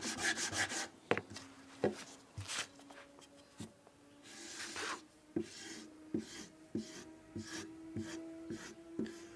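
Green polishing compound being rubbed briskly onto a leather strop: quick, even back-and-forth scrubbing for about the first second. After that come scattered light taps and a few short scraping strokes on the strop.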